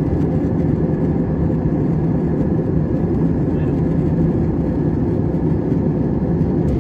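Airliner cabin noise in flight: the steady rush of air and engine hum, with a few steady low tones.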